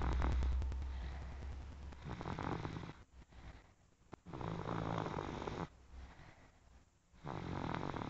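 Snoring in a slow rhythm: four snores, one about every two and a half seconds, with quieter pauses between.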